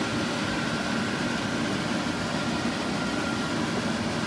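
Steady mechanical hum of background machinery, like an air conditioner or fan, with a faint steady high whine.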